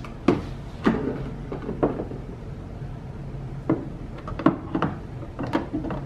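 Scattered knocks and clicks, about ten over the few seconds, of kitchen cupboards and dishes being handled.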